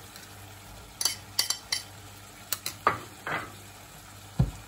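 A plate clinking and tapping against a frying pan as cooked prawns are tipped off it into the sauce: a run of short sharp clicks, then a couple of brief soft scrapes and one low thump near the end.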